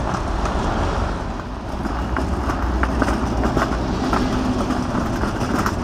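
City street traffic rumbling steadily, with a run of rapid clicks and ticks from about two seconds in.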